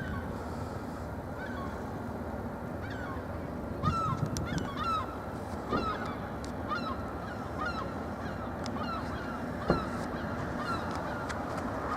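Birds calling over and over in short calls, a second or so apart, thickest about four to five seconds in. A single sharp knock comes about ten seconds in, over a steady outdoor background.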